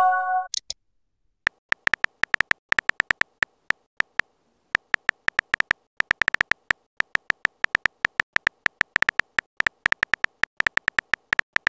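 Keyboard typing sound effect of a texting-story app: rapid, irregular little clicks at a typing pace, starting about a second and a half in. It opens with the tail of a short chiming message tone.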